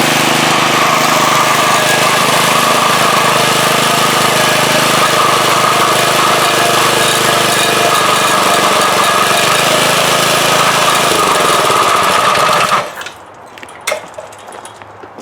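4 hp Briggs & Stratton single-cylinder lawnmower engine running steadily on a front-tine rototiller, then stopping abruptly near the end, followed by a few light knocks. The tiller's tines turn even with the drive lever released, which the owner puts down to a drive belt that is too tight.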